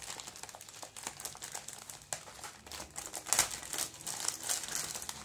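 Plastic courier mailer bag crinkling and rustling as hands press and slide over it, trying to get it open, with a louder burst of crackling about three seconds in.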